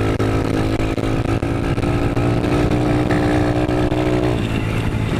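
Small dirt bike engine running at steady revs under way; about four and a half seconds in the note drops as the throttle comes off.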